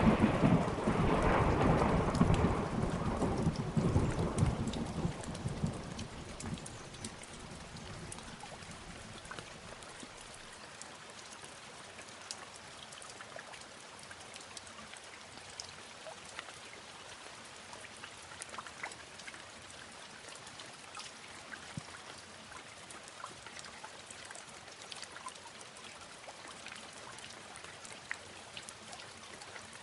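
A roll of thunder rumbling and dying away over the first several seconds, then steady rain with scattered drops pattering.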